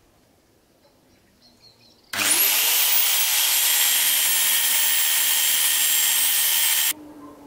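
A handheld electric power tool working on a wooden floor panel. It starts suddenly about two seconds in with a rising whine as the motor spins up, runs steadily for about five seconds, and cuts off abruptly shortly before the end.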